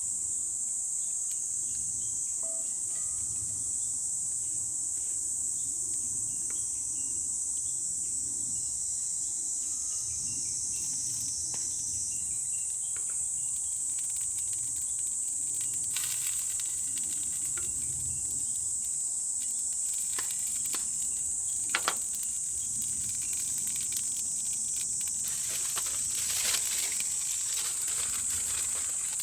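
A steady, high-pitched chorus of insects, with scattered clicks over it and a short sharp tick about two-thirds of the way through.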